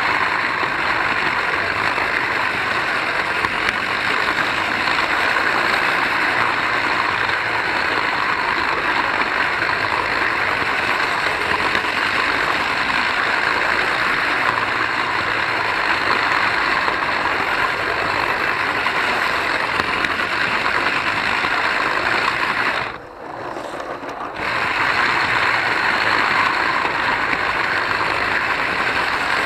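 Lima model diesel locomotive running on its metal track, heard close up: a steady whir of the electric motor and wheels on the rails. It dips sharply for about a second and a half some 23 seconds in, then picks up again.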